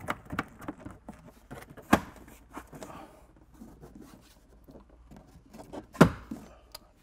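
Rubber door weather stripping being pressed back onto the car body's door flange by hand: faint rubbing and scraping with small ticks, and two sharp knocks, about two seconds in and near the end, the second the louder.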